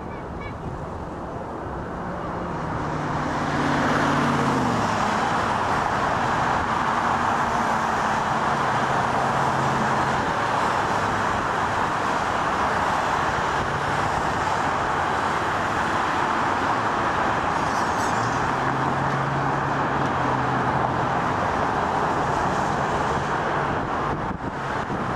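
Large jet airliner taking off: the noise of its engines at takeoff thrust builds over the first few seconds, then holds steady as the jet rolls and climbs away.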